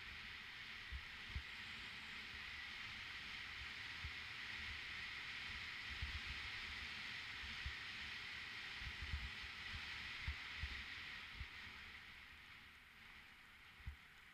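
Bicycle rolling downhill on a rough trail, heard from a helmet-mounted camera: a steady hiss with irregular low thumps as the bike jolts over bumps. The hiss fades over the last couple of seconds.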